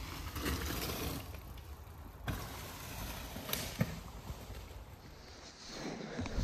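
Mountain bike riding over a dirt trail thick with dry fallen leaves: tyres rolling through the leaf litter, with a few sharp knocks from the bike.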